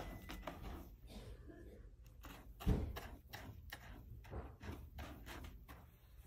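A cat digging in a plastic litter box, its paws scraping through the litter in quick strokes, about four a second. A dull thump stands out a little under halfway through.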